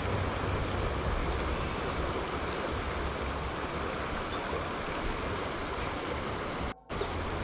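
Creek water rushing steadily over a rocky riffle, with a low rumble underneath; the sound cuts out for a moment near the end.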